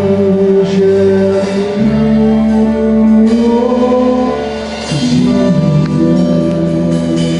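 Gospel worship song: a singer stretches the word "worship" into long held, gliding notes over the band's steady instrumental backing.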